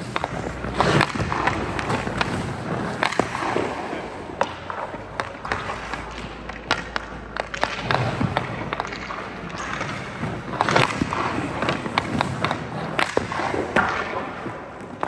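Hockey skates scraping and carving on rink ice, broken by several sharp clacks and knocks of a hockey stick on pucks and ice.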